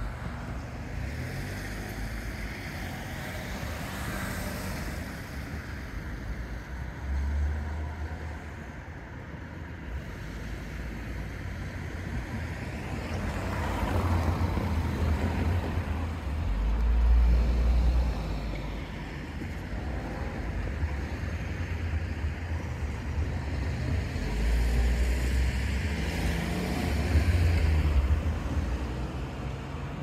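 Road traffic: cars passing on a street, swelling louder and fading away a few times, with wind buffeting the microphone.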